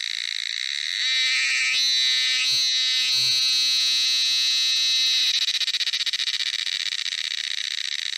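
Cicada singing: a loud, continuous high-pitched buzz that swells about a second in and, after about five seconds, turns into a rapid pulsing.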